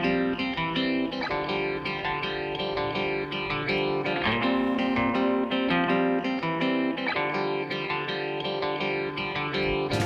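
Background music led by a plucked guitar, playing a melody of short notes at a steady level.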